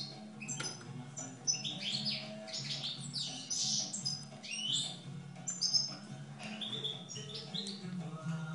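European goldfinch chirping and twittering: quick runs of short, high notes that come and go, over a low steady hum.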